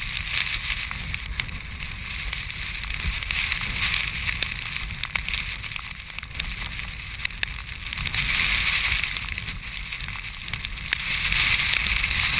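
Storm-force wind buffeting an action camera's microphone, with a steady hiss of blowing sand. Gusts swell about two-thirds of the way through and again near the end.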